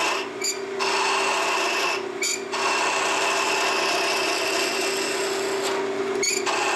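Wood lathe spinning a thin walnut spindle under a Vega duplicator's cutter: a steady motor hum beneath a continuous hiss of wood being shaved. The cut is fed slowly and lightly by hand. The hiss dips briefly about half a second in, around two seconds in, and near the end.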